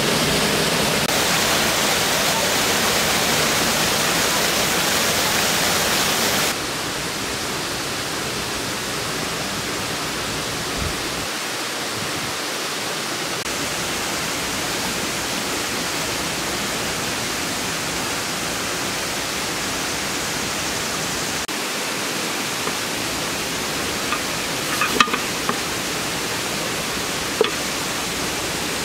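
Steady rush of river water, with no pitch or rhythm. It drops in level about six seconds in, and a few faint clicks come near the end.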